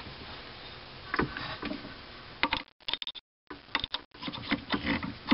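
Light metallic clicks and taps as a valve stem is handled and slid into the chuck of a Sioux valve face grinding machine: a few scattered clicks at first, then a quick run of clicks and knocks from about halfway.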